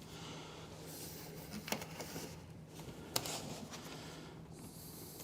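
Quiet handling of a computer case: light rustling with two small clicks about a second and a half apart.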